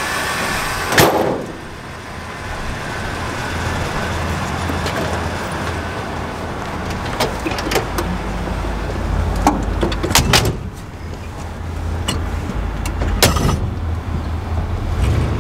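Car hood slammed shut with one loud bang about a second in, then car doors opening and shutting with clicks and knocks, the loudest near ten seconds in. Under it, the small-block Chevy V8 in a 1962 Cadillac idles low and steady.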